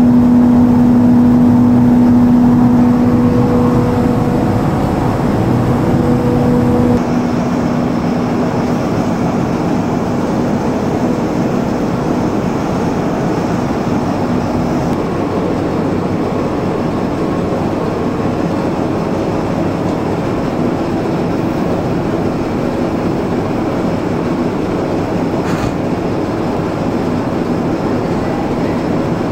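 Tea processing machinery running steadily: a motor hum with one strong steady tone for the first several seconds, then, after an abrupt change about seven seconds in, an even, continuous machine din.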